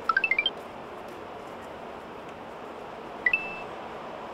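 Electronic sound effects: a quick run of six short notes stepping upward in pitch, then a little over three seconds later a two-note blip, the second note held briefly, over a steady background hiss.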